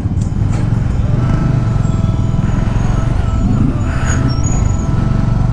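Motorcycle engine running steadily under way, with a constant low rumble.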